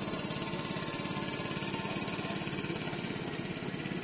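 A small engine running steadily with a fast, even chug.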